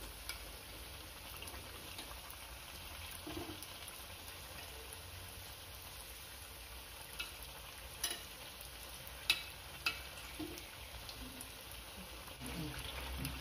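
Unniyappam batter balls deep-frying in hot oil in the cavities of an unniyappam pan, a steady sizzle, with a metal spoon clicking against the pan a few times as the balls are turned.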